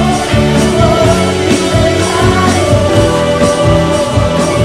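Pop-rock band music with several voices singing over a steady drum beat; one sung note is held through the second half.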